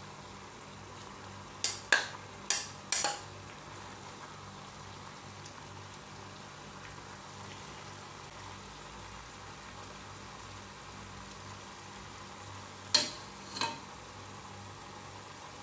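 Metal spoon knocking against the pan and bowl while stir-fried cabbage is scooped out. There are four sharp clicks about two to three seconds in and two more near the end, over a steady faint sizzle from the pan.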